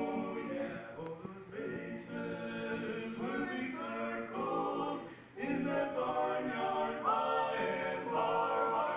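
Barbershop quartet of four men singing a cappella in harmony, phrase after phrase, with a short break about five seconds in and a long held chord near the end.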